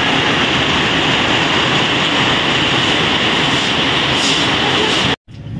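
Heavy rain pouring steadily, a dense even hiss that cuts off abruptly about five seconds in.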